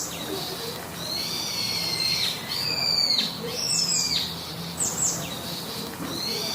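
Owl calls played as a sound effect: a series of about five high-pitched, screechy calls, each up to about a second long.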